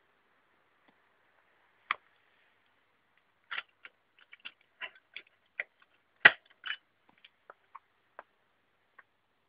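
Scattered light clicks and knocks from hands working the fuel tap of a 1970 Honda CB, engine not running; one click, then a quick irregular run of them with the loudest knock a little past the middle.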